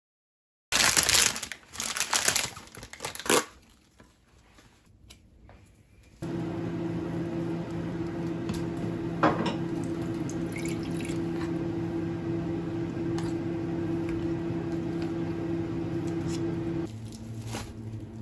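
Oden and its broth poured from a plastic tub into a ceramic bowl, with liquid splashing and dripping. A few seconds of rustling handling noise come first. From about six seconds in, a steady appliance hum runs under the pouring and drops to a lower hum near the end.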